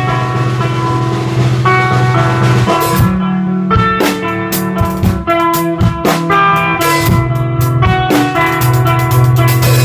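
Electric guitar and drum kit playing together live. The guitar holds sustained notes at first, and the drums come in with quick, steady hits about three seconds in.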